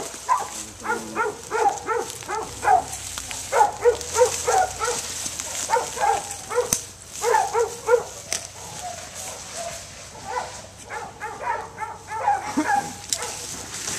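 Mountain Cur hunting dogs barking in quick runs of several barks a second, with short pauses between runs, as they work the trail of a wild hog.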